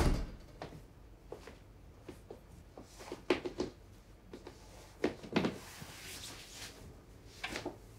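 Quiet room with a few soft knocks and bumps of a person moving about, in small clusters about three seconds in, about five seconds in and near the end.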